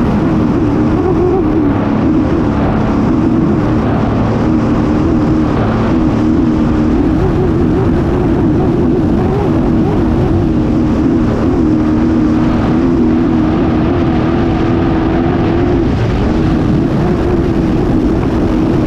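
Racing hydroplane's engine running flat out, heard from on board over rushing wind and water. The engine note holds high and wavers slightly, sags briefly about sixteen seconds in, then climbs again.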